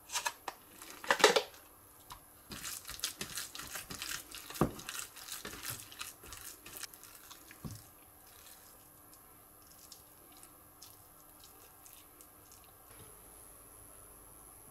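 A plastic tray of minced chicken crinkles as the meat is tipped into a small steel bowl, the loudest moment about a second in. Then comes rapid irregular clicking and smacking as a hand kneads the raw mince in the bowl. Softer, sparser clicks follow as the mixture is packed into a hollowed bamboo shoot.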